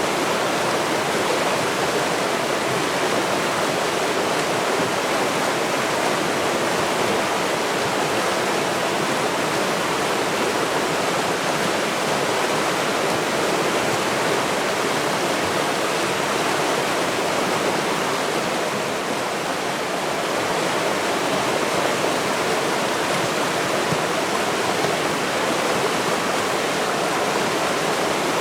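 River water flowing and rushing steadily, an even hiss of moving water that dips slightly in level about two-thirds of the way through.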